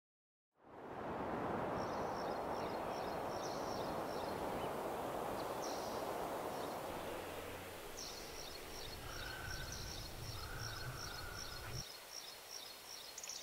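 Countryside ambience fading in from silence: a steady rushing noise with trains of rapid, high-pitched chirping and a few short calls. The lower rushing part drops away near the end.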